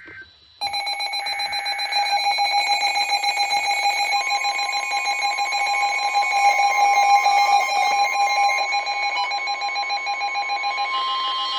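Emergency Alert System attention signal sounding ahead of a weather warning: a loud, steady electronic alarm of several overlapping tones that starts just under a second in, joined about four seconds in by a second steady tone.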